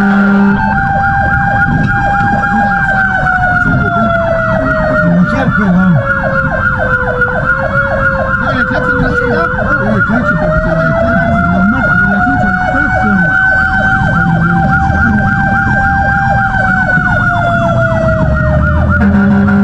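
Fire engine siren in a fast yelp, sweeping rapidly up and down over and over, with a second siren's slow wail gliding down and back up beneath it, over engine and road rumble. Near the end a low steady tone joins in.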